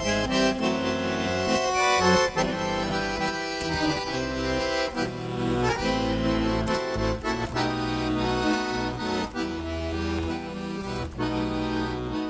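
Instrumental introduction of a Russian chanson song: a melody played over changing bass notes, with no singing.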